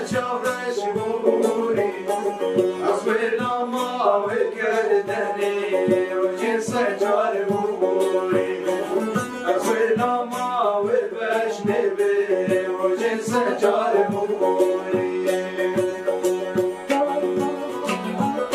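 A long-necked saz and a banjo-style lute plucked together in a quick folk melody, with male voices singing a Kurdish song over them.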